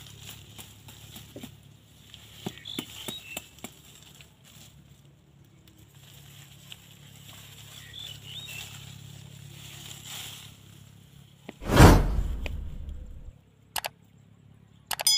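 Faint rustling and small clicks of twigs and sticks being handled, with a few faint bird chirps. Near the end a loud whoosh fading over about a second and a half, then a click and a ringing bell chime, typical of a subscribe-button animation's sound effect.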